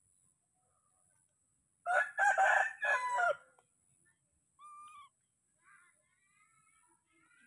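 A rooster crows once, about two seconds in, a loud call of about a second and a half. A short, higher single call and faint chirps follow.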